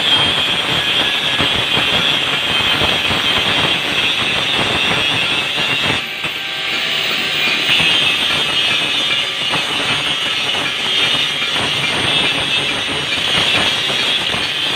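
Electric angle grinder grinding metal, a loud, steady, harsh grinding noise that eases briefly about six seconds in before biting again.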